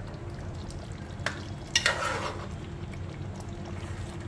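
Metal spoon stirring and scooping thick chicken curry in a metal pot, with a short scrape about a second in and a louder scrape of the spoon against the pot about two seconds in.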